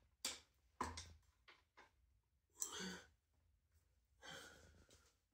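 Faint knocks and clicks from the stem and handlebar of an electric scooter being handled and fitted together, with a couple of breathy exhales.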